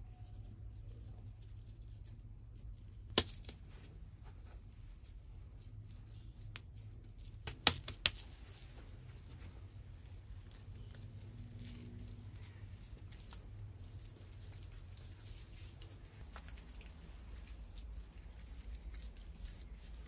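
Bare hands pressing and smoothing wet clay, with soft irregular rubbing and patting throughout. There are a few sharp clicks: one about three seconds in and a quick pair near eight seconds.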